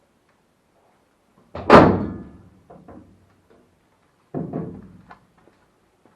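A classic Mini's door shut with a loud thunk, then shut again about three seconds later with a quieter thunk, with small clicks of handling in between. The door has been refitted and is dropping at the back.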